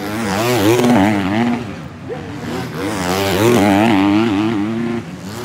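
250cc motocross bikes revving hard through a turn, the engine note rising and falling over and over with throttle and gear changes as several bikes pass.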